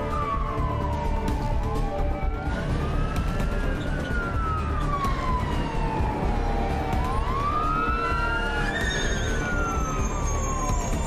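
Sirens of arriving fire apparatus wailing. Two or more overlap, each rising and falling slowly over a few seconds, above a low rumble.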